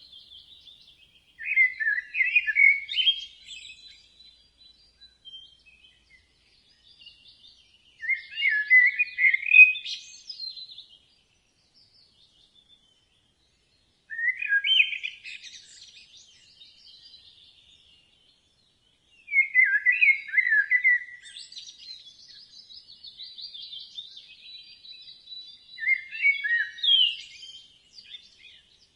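A bird singing a loud, warbling phrase of about two seconds, repeated five times at intervals of roughly six seconds. Fainter, higher chirping and a thin steady high note fill the gaps between the phrases.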